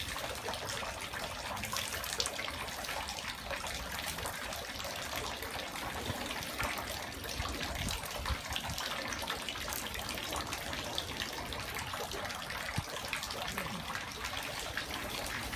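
Water running steadily at a Shinto shrine's temizuya, the hand-washing basin used for purification, a continuous trickling and splashing.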